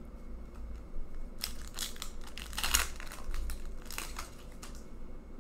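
A hockey card pack wrapper being torn open and crumpled by hand: a run of crinkling and tearing from about a second and a half in, loudest near the middle, dying away about a second before the end.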